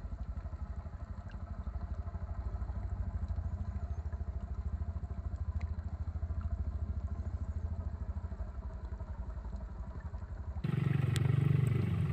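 A steady, low engine-like drone with a fast, even pulse. About ten and a half seconds in, the sound changes abruptly to a louder, fuller rumble.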